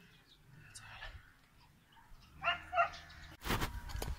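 Two short animal calls about half a second apart, like a small dog's barks, then a sudden loud rustle near the end.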